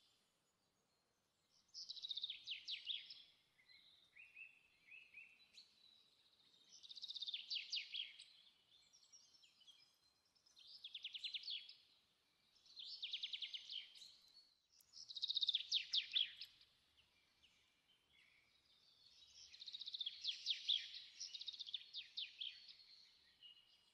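Small songbird singing: about six fast trilled phrases, each a second or two long and a few seconds apart, with short chirps in between.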